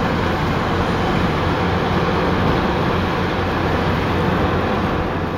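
Steady road noise inside a moving car's cabin: tyres running on a wet highway.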